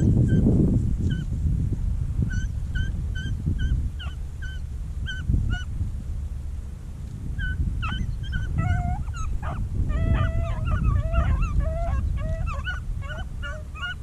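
Rabbit-hunting beagles giving tongue on a freshly jumped rabbit's trail: short, evenly repeated yelps at first, then several dogs baying over one another from about eight seconds in. A low rumble runs underneath.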